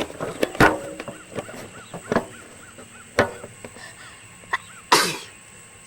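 A person sneezing several times in a row in a sneezing fit: short sharp sneezes, the loudest and longest about five seconds in.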